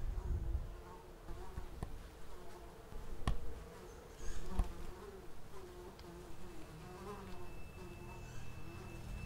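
A fly buzzing about, its drone wavering up and down in pitch as it moves, with two sharp clicks about three and four and a half seconds in.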